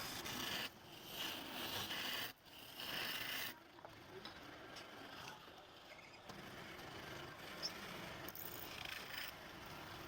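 A cutting tool scraping on wood, likely a turning chisel against a workpiece on a lathe. It goes in three strokes of about a second each, then settles into a steadier, fainter scrape.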